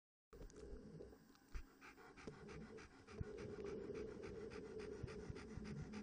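Standard Poodle panting, recorded ten days after left arytenoid lateralization for laryngeal paralysis, with breathing that has no stridor. The sound cuts in just after the start.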